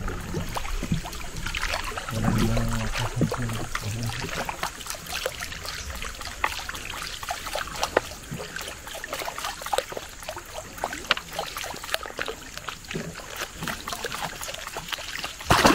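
Water trickling and lapping with many small, scattered clicks and splashes.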